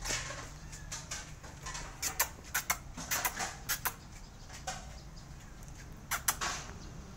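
Kittens mewing in short, high-pitched squeaks, several in quick succession, coming in three bursts.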